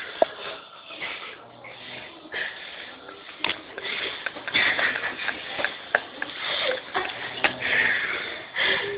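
A sleeping person snoring: noisy breaths that swell and fade every second or two, with a few sharp clicks in between.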